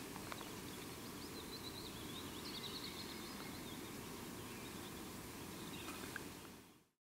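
Faint outdoor ambience: a steady, quiet hiss with small birds chirping, a quick run of chirps a little over a second in and a few more near the end, then the sound fades out.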